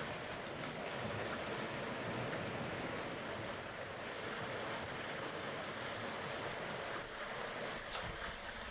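Sea waves washing steadily against the shore, with a thin, steady high tone above them.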